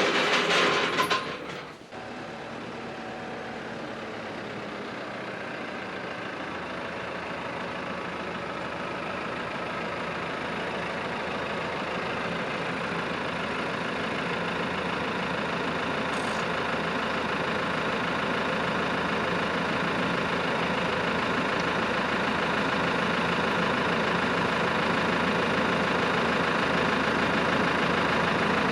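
Tractor diesel engine running steadily, slowly growing louder. A brief loud burst of noise comes in the first couple of seconds.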